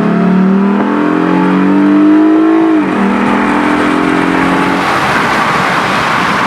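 Lexus IS350's 3.5-litre V6 through a Megan Racing axle-back exhaust, accelerating with a deep tone that rises in pitch. About three seconds in the pitch drops suddenly at a gear change. Near the end the engine note fades into road noise.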